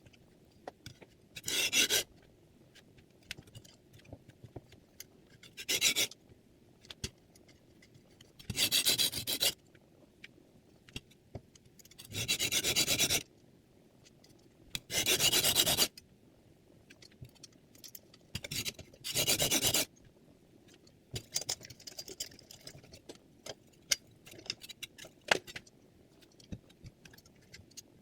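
Chef's knife blade drawn across a diamond sharpening plate, its angle held by a clip-on guide: six separate scraping strokes about three seconds apart, each lasting under a second. Light clicks and taps follow near the end.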